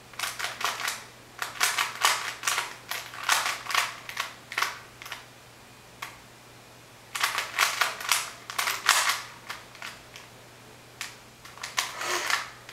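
Plastic Rubik's Cube layers being twisted by hand: rapid clicking clatter in quick runs of turns, with pauses of one to two seconds between runs.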